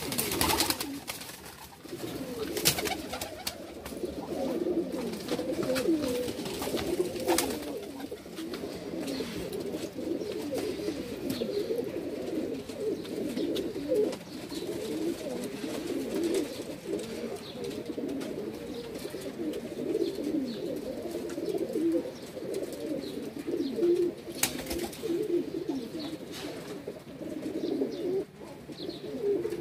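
Many domestic pigeons cooing at once in a loft, a continuous overlapping chorus of low coos, with a few sharp knocks scattered through it.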